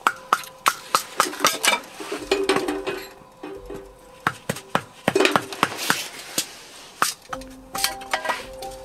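Metal and glass clicking and clinking as a Feuerhand hurricane lantern is handled and lit with a match, with a brief hiss about halfway through.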